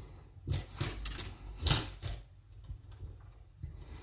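Glitchy static crackle from a corrupted tape: a run of short, harsh bursts in the first two seconds, then fainter scattered clicks.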